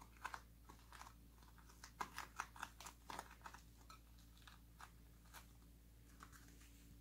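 Faint crinkling and light ticks of hands pressing and rolling a softened rice-paper roll on a ceramic plate, densest about two to three seconds in.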